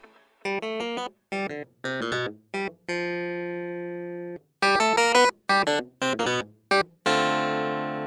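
Background music on a keyboard instrument: short separate notes with brief silences between them, and two held chords that slowly fade.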